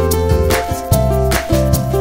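Upbeat background music with guitar and a steady beat.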